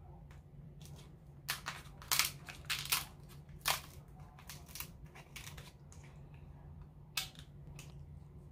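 Kitchen scissors snipping and cracking through the shell of a boiled king crab leg: a series of sharp crunchy snaps, several in quick succession over the first four seconds and one more near the end, over a low steady hum.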